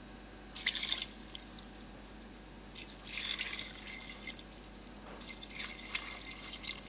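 Water poured from a plastic measuring jug into a rice cooker's inner pot over rice and vegetables, in three pours: a short one, then two longer ones. It is being topped up to the 2-cup water line before cooking.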